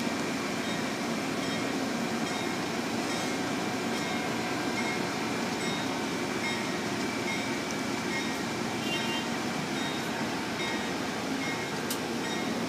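Amtrak stainless-steel passenger coaches rolling past close by at speed: a steady rush of steel wheels on the rails, with a single sharp click near the end.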